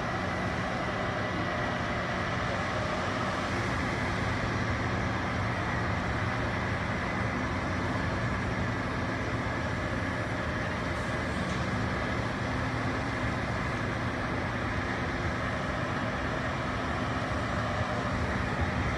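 Crawler bulldozers working dirt: a steady diesel engine drone with a faint high whine above it.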